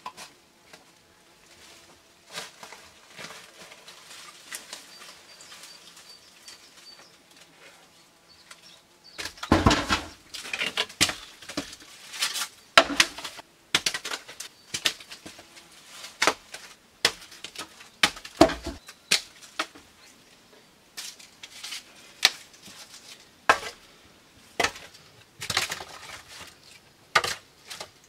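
Hand building work: irregular knocks and clatter of materials and tools being handled, starting about nine seconds in after a quieter stretch.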